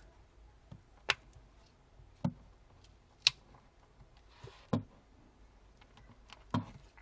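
A handful of light, sharp clicks and taps, about five of them a second or so apart, from tools and small parts being worked while a smartphone is taken apart.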